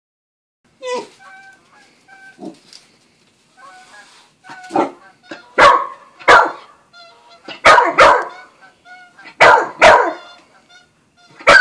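Australian shepherd–corgi mix puppy barking at a cat: a few softer yips at first, then loud sharp barks, mostly in pairs about two seconds apart.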